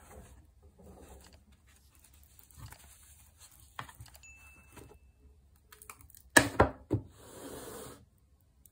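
A stainless steel link watch bracelet and case being handled: soft rustling as the watch comes off its cushion, a few sharp metallic clicks of the links about six and a half seconds in, then about a second of scratchy rustling.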